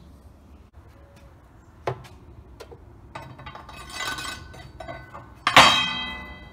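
Anode rod being lowered into a water heater tank's threaded port: a sharp click, scraping and rattling of metal against the fitting, then a loud metallic clank about five and a half seconds in as the rod drops home, ringing for about a second in the empty tank.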